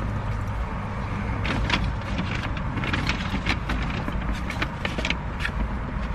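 Car running, a steady low rumble heard inside the cabin, with a run of clicks and rustles as things are handled in a purse and a shopping bag.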